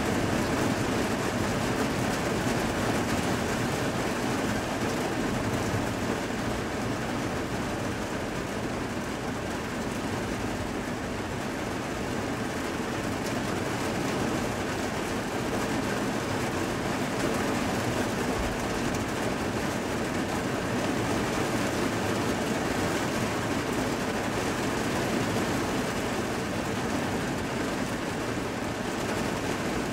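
Heavy rain falling steadily during a thunderstorm, heard from indoors behind a rain-streaked window.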